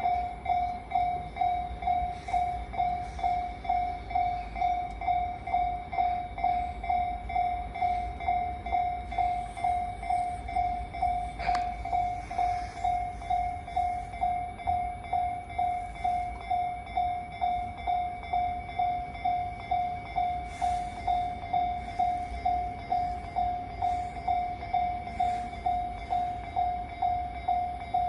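Japanese railway level-crossing alarm ringing: an electronic bell repeating one steady ding over and over at an even pace, over a low rumble. There is a single sharp click about eleven seconds in.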